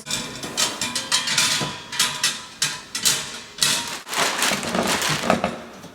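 Hard furniture pieces knocking and clattering against each other as they are handled and fitted together, with many quick irregular knocks.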